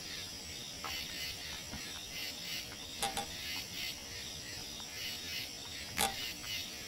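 A steady, pulsing chirring of night insects, with a few sharp clicks about a second, three seconds and six seconds in; the click at six seconds is the loudest.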